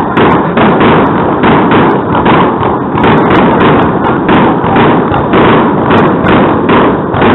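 Fireworks shells bursting in quick succession, a continuous run of thuds and bangs over loud rhythmic music, so loud that the recording is distorted.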